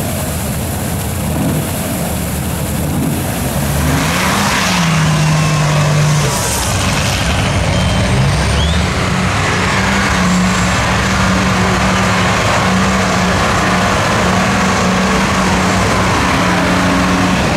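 Off-road race trucks' engines running under load in deep mud. About four seconds in the engine note rises and then holds a steady drone.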